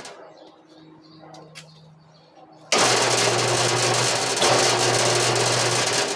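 An electric motor-driven workshop tool switched on about three seconds in, running loud and steady with a low hum. Before that, only a faint hum and a few light clicks.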